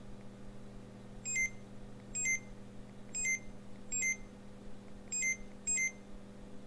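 Barcode scanner giving six short electronic beeps, one for each successful scan of a barcode label. They come about a second apart, with the last two closer together.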